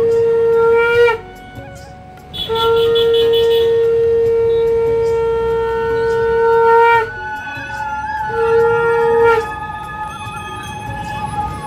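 Conch shell (shankha) blown in long held blasts, each swelling and bending up in pitch as it ends. One blast ends about a second in, a long one runs from about two and a half seconds to about seven, and a short one comes around eight seconds.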